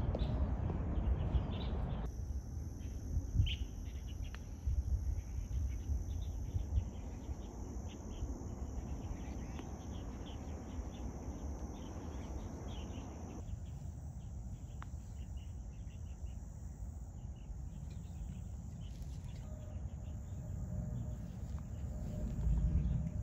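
Outdoor ambience: a steady high-pitched insect drone and scattered short bird chirps over a low rumble of wind on the microphone.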